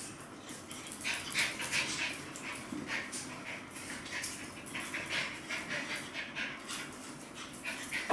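A Shetland Sheepdog and a Chihuahua play-chasing on a tile floor: a busy run of claws clicking and skittering on the tiles, with scuffling as they tussle.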